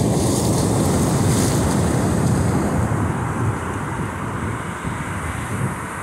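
Wind buffeting the microphone with a steady low rumble, over the hiss of surf washing up the sand. The hiss is strongest in the first couple of seconds, then eases.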